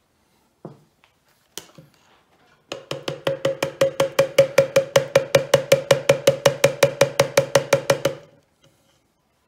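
Hand-held stick blender's plastic shaft knocked rapidly against the rim of its plastic blending beaker to shake off clinging pesto: a quick, even run of hollow knocks, about five or six a second for about five seconds, after a couple of single knocks.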